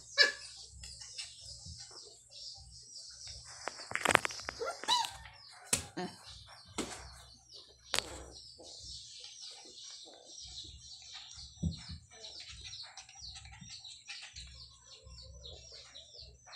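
Two puppies play-fighting on a tiled floor, with scattered sharp knocks and scuffles, the loudest about four, six and eight seconds in. Behind them, small birds chirp fast and high throughout, busier in the second half.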